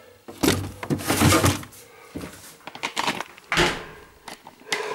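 Handling noises: a few irregular rustles and knocks, the longest about half a second in, then shorter ones spaced through the rest.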